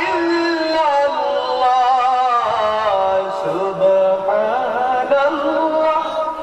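Islamic devotional chanting by a man's voice, a slow melodic line of long held notes that bend up and down.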